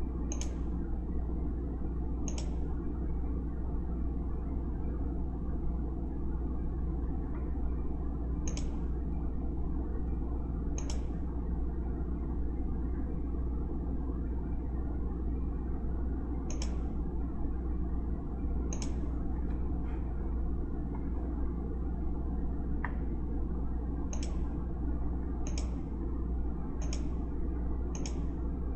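Computer mouse clicking now and then, about ten single sharp clicks with gaps of one to six seconds, over a steady low hum from the room or microphone.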